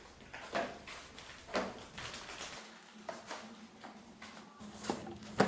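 Scattered light knocks and clatters of household objects being handled during chores, about one a second, the sharpest near the end.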